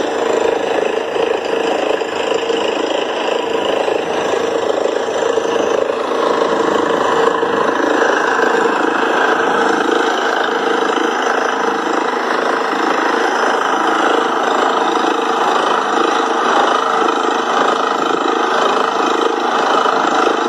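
Borewell drilling rig and its truck-mounted air compressor running steadily while boring a well. The noise is loud and unbroken.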